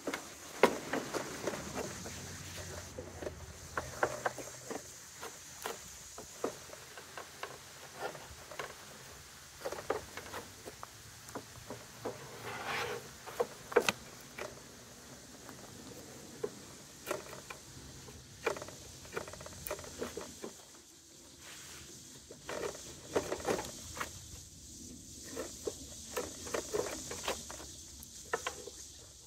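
Lumber being handled and worked by hand on a table saw's steel top: irregular light knocks, taps and scrapes of wood, with one longer scrape about halfway through and hand-chisel work on the board near the end.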